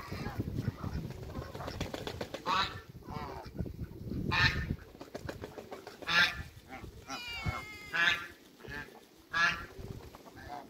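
Domestic African geese honking, short separate honks every second or so, with one longer, wavering call a little past the middle.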